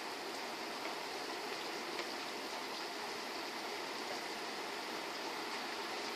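Steady rain falling, an even hiss with a few faint ticks of individual drops.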